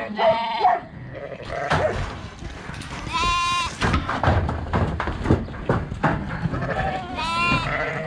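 Lambs bleating as they are pushed up a corrugated-iron race: two long, wavering bleats, one about three seconds in and one near the end, over a run of short knocks and clatter from the race.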